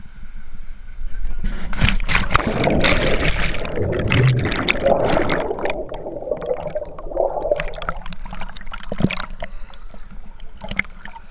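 A splash as it plunges into a fast-flowing river about two seconds in, then muffled rushing and bubbling underwater. Near the end it breaks the surface, with water sloshing and dripping.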